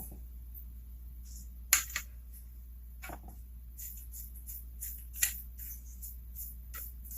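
Small metal screws and parts clicking and jingling as they are picked through by hand, with a few sharper clicks among lighter ticks. A steady low hum runs underneath.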